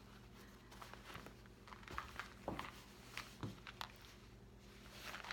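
Quiet handling noise from a canvas bag organizer and the things packed in it: soft rustling and a handful of light, scattered knocks as it is held open and filled.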